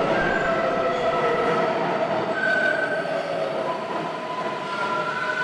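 Subway train running: a steady rush of rail noise with several high, drawn-out tones over it.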